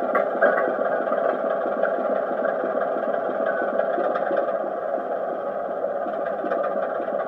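Sound-fitted OO-gauge model of a class 25 diesel locomotive: a DCC sound decoder playing a Sulzer six-cylinder diesel engine running steadily, with a fast even beat, through the model's small speaker.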